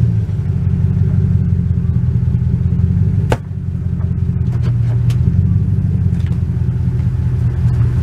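Pickup truck engine running steadily at low speed, a low rumble, as the truck backs its rear wheel slowly onto a flat tire to push the bead off the rim. A single sharp click a little over three seconds in.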